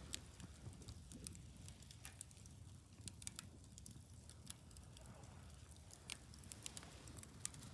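Wood fire burning quietly, with irregular sharp crackles and pops over a low steady rumble.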